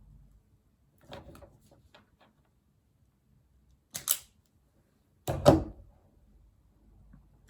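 Sharp clicks and snaps of small hand tools working on wire: a few soft clicks, a crisp double click near four seconds, and a louder double snap about five and a half seconds in.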